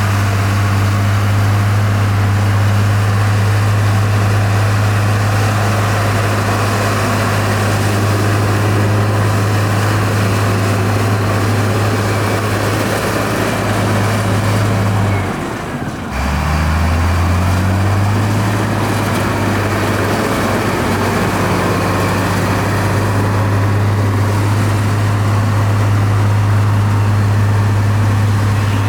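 Heavy diesel engine of a construction machine running steadily. About fifteen seconds in it drops off briefly, then picks up again with a rising pitch before settling back to a steady run.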